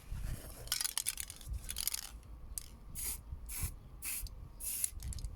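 Aerosol can of black spray paint hissing in separate bursts: a longer spray about a second in, then a run of quick short spurts, with faint handling knocks underneath.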